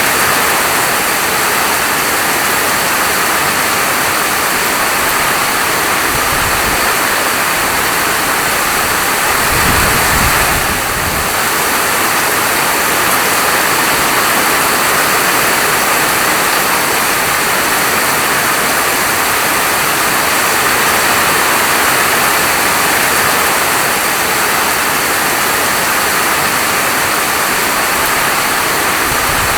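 Steady heavy rainfall, a dense even hiss. A brief low rumble swells and fades about a third of the way through.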